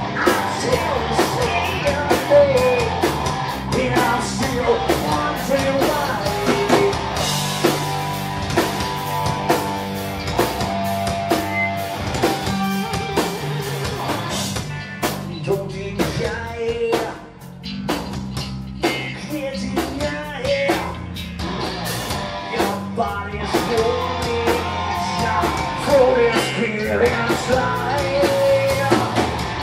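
Live rock band playing: electric guitars, bass and drum kit, with a male singer's vocals at the start and again near the end. Around the middle the band breaks into short, separated hits for several seconds before the full band comes back.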